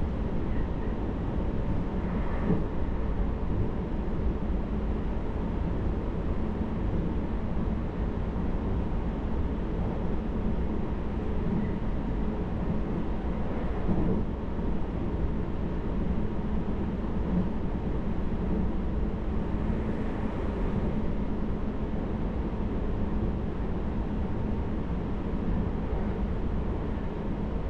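Steady running noise of the JR Hokkaido Hakodate Liner electric train heard from inside the passenger car, low and even, with brief knocks about two seconds in and again about fourteen seconds in.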